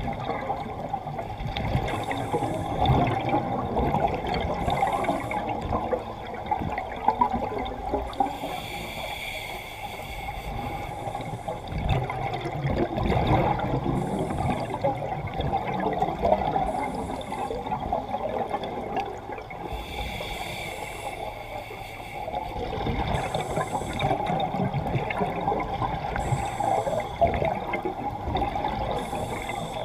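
Scuba diver breathing through a regulator, heard underwater: bubbling, gurgling exhaled bubbles alternate every few seconds with a short hiss of the inhale.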